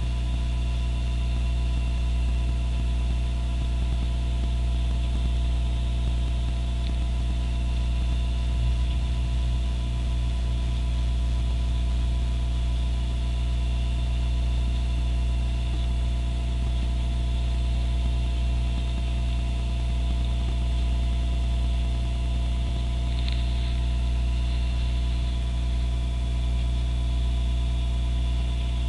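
Steady electrical hum with a constant hiss and a few faint steady whining tones, unchanging throughout.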